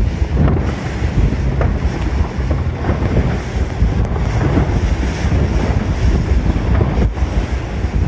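Heavy wind buffeting the microphone aboard a moving boat, with water rushing past beneath.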